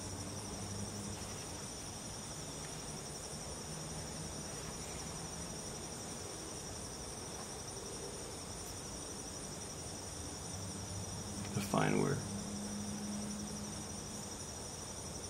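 Steady high-pitched cricket trilling in the background, with a short vocal sound from a person about twelve seconds in.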